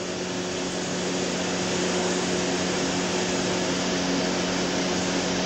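Steady hum and hiss of a running room appliance such as a fan, with a constant low drone.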